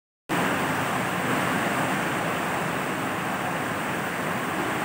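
Heavy rain with the rush of floodwater, a steady noise that cuts in suddenly a moment in.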